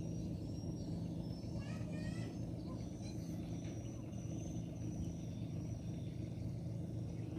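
Steady low engine hum with no change in pitch, with high bird chirps above it, most of them in the first two seconds.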